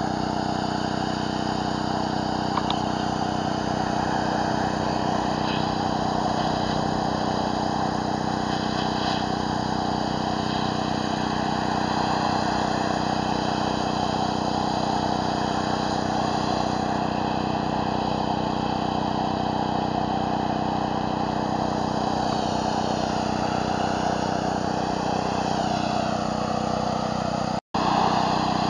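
Pressure washer engine running steadily, with the hiss of water spraying from a surface cleaner onto concrete. The sound drops out for an instant about a second before the end.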